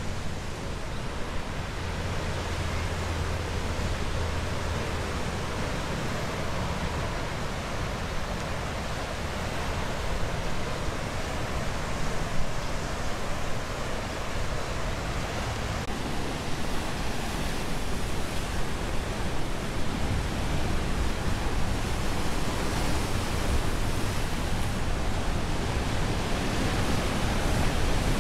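Ocean surf breaking and washing, a steady rushing noise that grows somewhat louder after about ten seconds.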